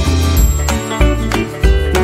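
Upbeat background music: plucked acoustic guitar over a steady bass beat.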